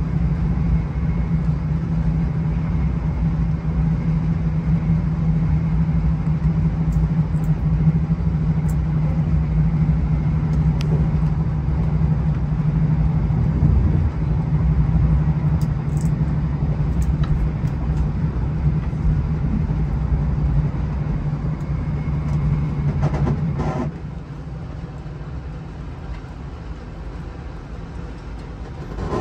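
Steady low engine hum and running noise of a moving vehicle. It drops to a quieter level about four-fifths of the way through.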